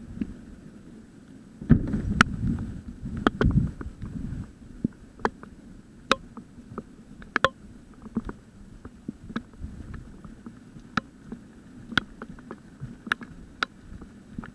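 Hailstones striking nearby in irregular sharp ticks, about one or two a second, easy to mistake for airsoft BBs hitting. A short stretch of low rumbling noise comes about two seconds in.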